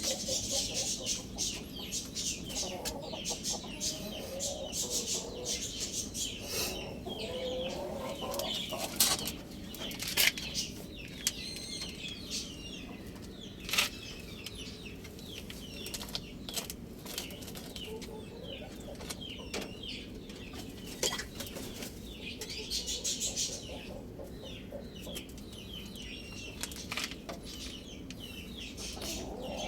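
Chickens clucking over a dense background of small birds chirping, with a few sharp knocks around the middle.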